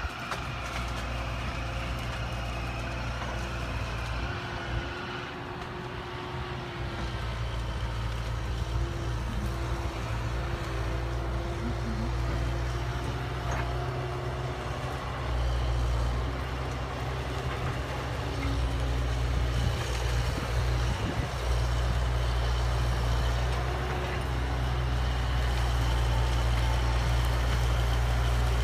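Caterpillar tracked excavator's diesel engine running steadily as it works clearing brush, its drone getting a little louder in the second half.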